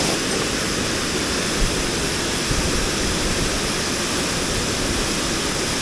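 Rushing mountain stream: a steady, even roar of fast-flowing water.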